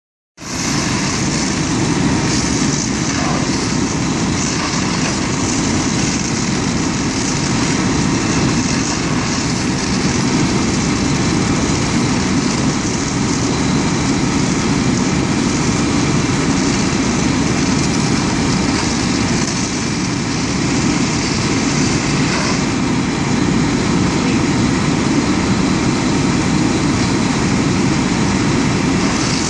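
Fire engines' diesel engines running steadily at pumping revs, a continuous low rumble, with the steady hiss of hose streams spraying water.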